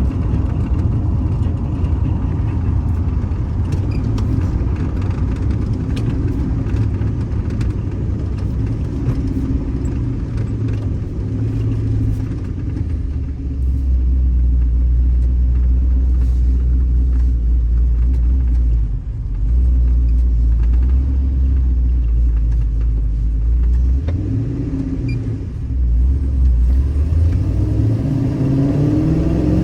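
Pickup truck engine running with a steady low rumble that dips briefly a couple of times, then revs up with rising pitch near the end as the truck pulls away.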